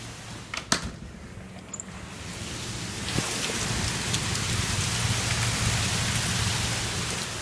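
Heavy rain in strong wind, swelling in a gust about three seconds in and easing near the end. A sharp knock comes about a second in, with a few fainter clicks later.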